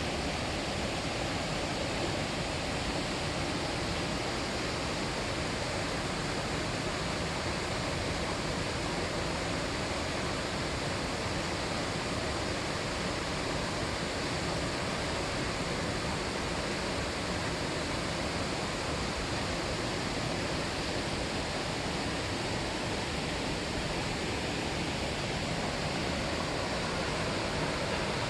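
Mountain stream water rushing steadily, an even, unbroken flow.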